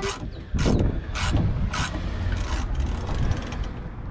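Clicking and clattering of hand tools and metal door-latch parts being worked, a sharp click about every half second over a low rumble.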